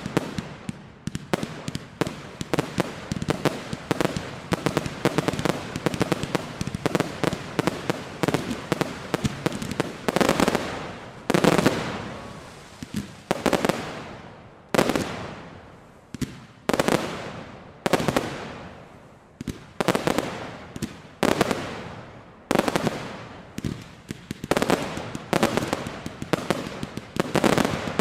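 Fireworks display: a dense, rapid run of shell bursts and crackling bangs. Heavier single booms come every second or two through the middle of the stretch before the rapid volleys pick up again.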